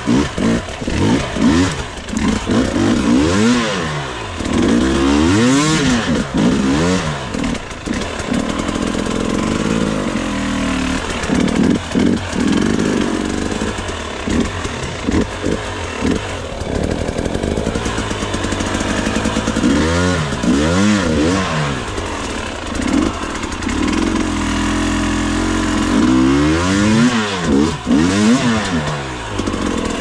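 Enduro motorcycle engine revving up and down in repeated throttle bursts, with steadier running between, as the bike is ridden slowly up a rough, leaf-covered gully.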